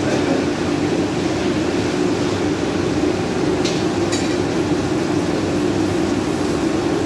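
A commercial gas wok burner burning with a steady rushing noise, with chilli paste sizzling in oil in the wok. Two short clicks come a little past the middle.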